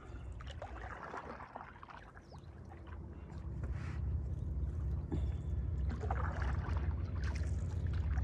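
Canoe being paddled across calm water: soft paddle splashes and drips every two or three seconds, over a low rumble that grows louder about three seconds in.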